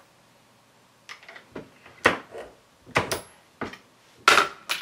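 Hands working a turret reloading press, giving a string of irregular metal clicks and knocks, about eight, with the loudest knock near the end.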